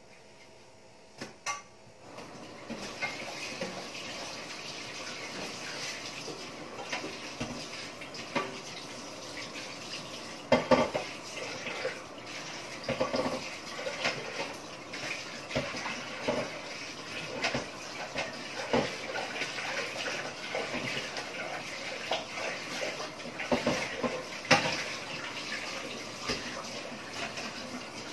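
Pork adobo bubbling and sizzling in a lidded stainless frying pan, a steady hiss full of small crackles with a sharper pop now and then, starting about two seconds in.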